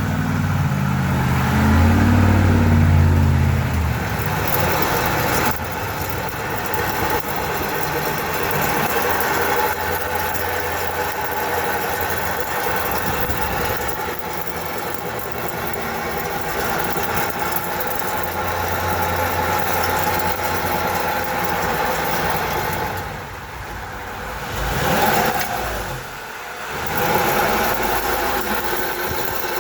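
Toyota Sienna running and driving, a loud low rumble in the first few seconds giving way to a steady drone, the noise the mechanic puts down to worn wheel bearings run dry of grease, metal on metal.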